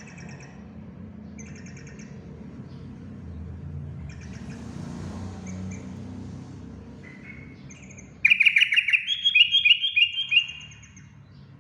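Yellow-vented bulbul (trucukan) singing: scattered faint chirps at first, then about eight seconds in a loud two-second burst of quick, bubbling notes. A low rumble runs underneath.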